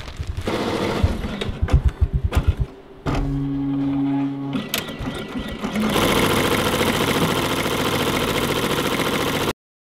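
Multi-needle embroidery machine stitching a cap, running at a fast, steady needle rhythm with a short steady hum partway through. It cuts off abruptly near the end.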